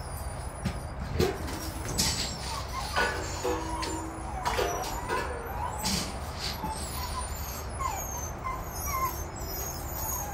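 A litter of Rottweiler puppies whining and yipping in many short, high calls, with a few sharp knocks among them.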